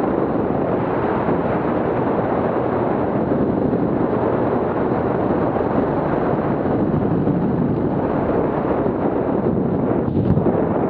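Steady roar of wind buffeting an action camera's microphone in paramotor flight, with no distinct engine note standing out; it eases slightly near the end.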